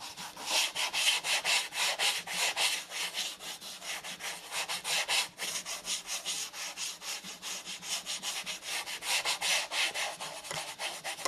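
Hand-held abrasive block rubbed back and forth over copper-clad circuit-board model railway ties, scouring the copper bare for tinning: rapid, even scraping strokes.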